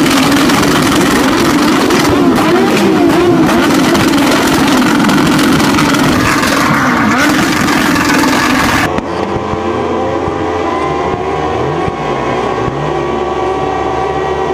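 Motorcycle engines held at high revs during burnouts, a steady hard-running engine note with small wavers in pitch. About nine seconds in it cuts suddenly to a quieter, duller recording of more engines running at high revs.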